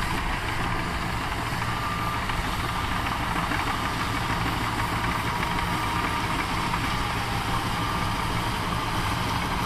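Cat D6K2 LGP crawler dozer's diesel engine running steadily under load as it pushes a pile of dirt with its blade, with a faint high whine above the engine note.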